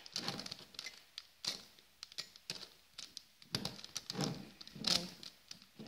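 Megaminx puzzle being turned by hand: quick plastic clicks and clacks of its faces rotating, in irregular flurries, the loudest about five seconds in.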